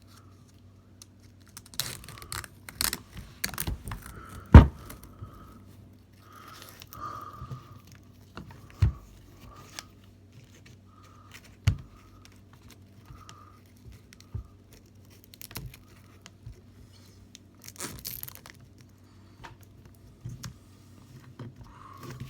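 Velcro hook-and-loop ties ripping open in short bursts while a camera rig is handled, with scattered clicks and knocks of parts being fitted. The loudest sound is one sharp knock about four and a half seconds in.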